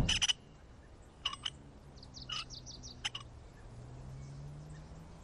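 A short knock, then a few scattered high bird chirps over a quiet background.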